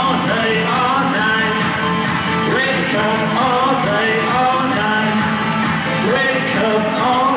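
Background music with a steady beat and a melody line that glides from note to note.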